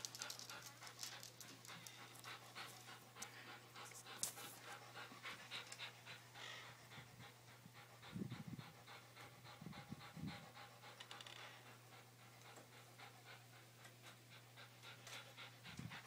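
A dog panting faintly in a quick, even rhythm, with a couple of low thumps about halfway through.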